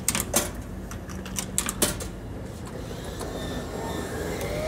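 Coins clicking through the coin slot of a fresh-popcorn vending machine, about six sharp clicks over the first two seconds. The machine then starts up with a hum that builds and a steady whine that rises slightly near the end.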